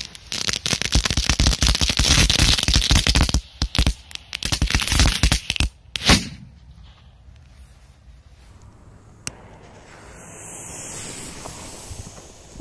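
Lit firecrackers: several seconds of dense, rapid crackling and popping, then one sharp loud bang about six seconds in, followed by a fainter steady hiss of burning fuses.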